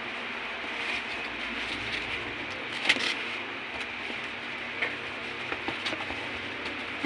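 Crumpled white packing material rustling and crinkling as hands pull it out of a cardboard box and handle it, with scattered crackles and a sharper crackle about three seconds in.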